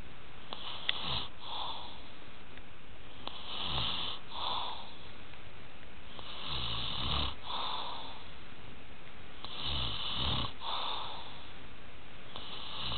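A sleeping man snoring in a steady rhythm, about one rasping snore every three seconds, each followed by a shorter, softer breath.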